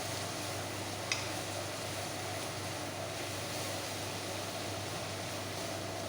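Steady hiss with a constant low hum from a kitchen where vegetables are cooking in a pan, with one short click about a second in.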